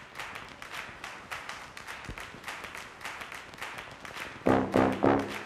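Background music: a light percussive beat at about four ticks a second, then loud brass notes come in about four and a half seconds in.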